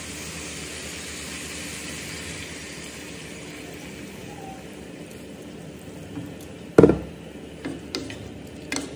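Water pouring from a stainless-steel electric kettle into a hot frying pan of stir-fried vegetables, a steady hiss that slowly fades. About seven seconds in comes one loud knock, then a few light clacks of spatulas against the pan near the end.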